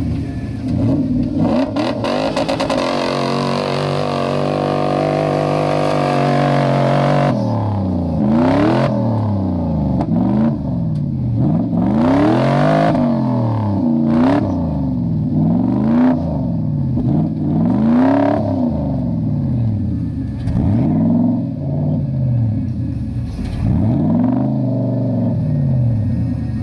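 Off-road rig's engine held at high revs for about seven seconds as it works in deep sand. After that it is revved up and down over and over, roughly once every two seconds, while the rig claws its way out of a sandy washout.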